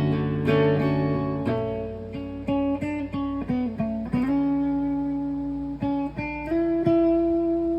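Mexican-made Fender guitar played solo: a chord rings out and fades, then a quick run of single plucked notes, then long held notes in the second half.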